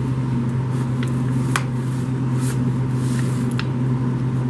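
A steady low machine hum, with a few light clicks and scrapes of a metal spoon spreading thick cheese dip mixture in an aluminium foil pan.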